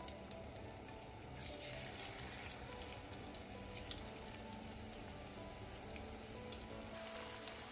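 Onion-and-lentil fritters frying in hot oil in a stainless steel pan: a light sizzle with scattered crackles and pops. The sizzle grows fuller about a second and a half in, as a second fritter goes into the oil.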